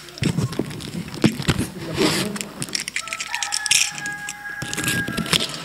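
A plastic-wrapped cardboard box being handled and pulled at: rustling and scraping of the wrap and cardboard, with repeated knocks and clicks.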